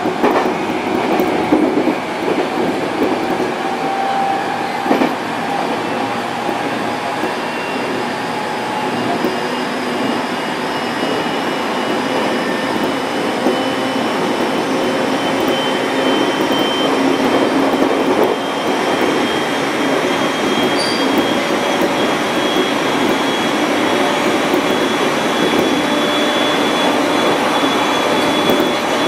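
701-series electric train running along the track: a steady rumble of wheels and running gear, with a faint whine slowly rising in pitch.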